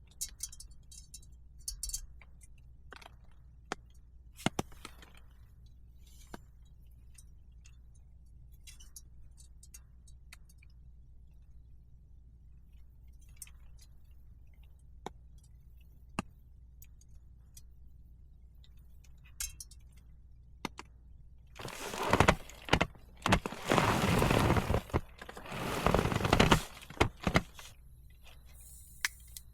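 Scattered small clicks and clinks of objects being handled, then about five seconds of loud rustling and clattering near the end.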